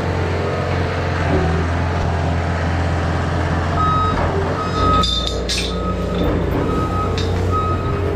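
A machine's engine running steadily. From about four seconds in, a reverse alarm beeps at a single pitch about once a second as the machine backs up, with a few metallic clanks around the fifth second.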